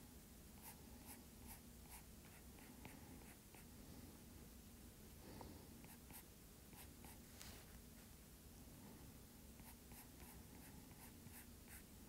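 Faint tapping and scratching of a stylus tip on a tablet's glass screen while sketching, coming in irregular runs of short ticks.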